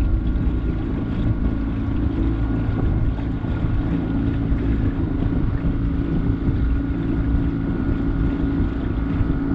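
Outboard motor of a small aluminium boat running steadily under way, its hum unchanging, with wind buffeting the microphone.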